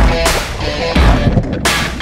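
Loud, energetic background music with a heavy drum beat.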